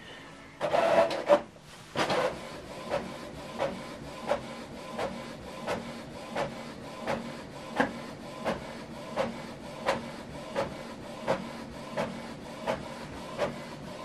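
Canon PIXMA TS7451 inkjet printer running a double-sided print job. A brief louder mechanical whirr comes about a second in, then steady running with a sharp click about every 0.7 seconds.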